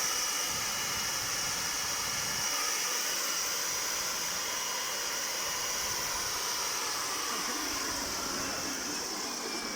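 Gardena garden vacuum running as a blower, a steady rush of air with a high whine, blowing across charcoal to fan the coals and clear off the dust.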